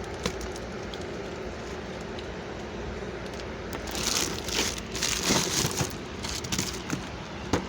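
Packaging being handled and opened, with bursts of crinkling and rustling for about three seconds past the middle, over a steady background hum.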